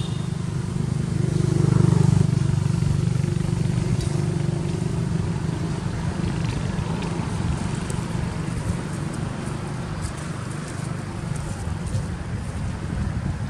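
A motor vehicle's engine running with a steady low drone, loudest about two seconds in and then slowly fading.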